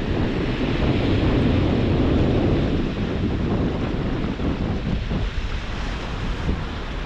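High-tide water washing in and striking hard against the embankment and its wooden stakes, with wind buffeting the microphone. The wash swells strongest over the first couple of seconds, then runs on more evenly.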